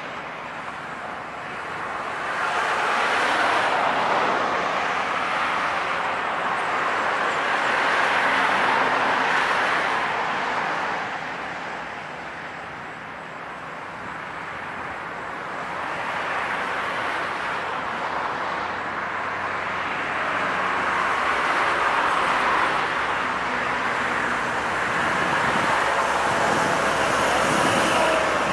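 Road traffic passing: vehicles go by one after another, their tyre noise swelling and fading every few seconds, with a quieter lull about twelve seconds in.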